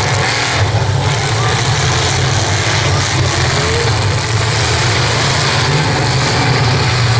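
Demolition derby car and truck engines running and revving together: a loud, steady engine drone.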